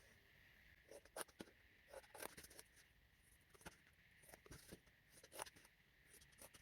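Faint, irregular snips and clicks of small craft scissors cutting cardstock, with light paper handling between cuts.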